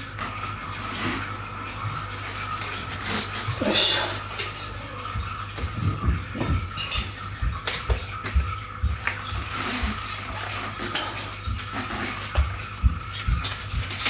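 A bicycle tyre being worked off its rim by hand with tyre levers: rubber scraping and rubbing against the rim, with many scattered small clicks and knocks.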